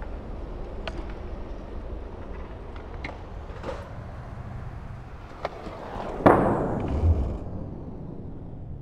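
Skateboard wheels rolling on concrete with a few light clicks, then a sharp loud pop of the tail snapping against the ground about six seconds in, with a high ring that slides down in pitch, followed by a low thud.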